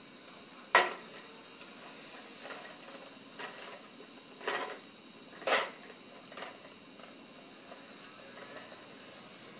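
Hard plastic toy car knocked down onto a corrugated plastic sheet with one sharp clack, then pushed along the ridges in a few short rasping scrapes, two of them louder, a second apart.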